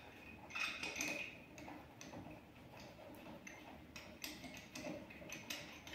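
Faint, irregular metallic ticks and clicks of loosened wheel nuts being turned off a van's steel wheel by hand.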